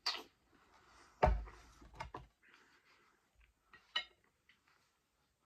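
Eating at the table: a brief slurp, then about a second in a plate set down on the table with a heavy knock, a few lighter knocks, and near the end a sharp clink of wooden chopsticks against the plate.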